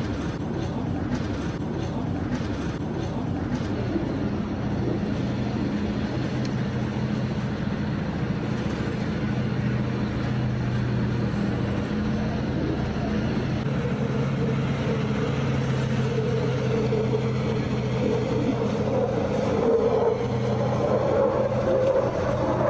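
Tank engine running with a steady low drone as the tank moves forward. A higher whine joins in about two-thirds of the way through and grows louder.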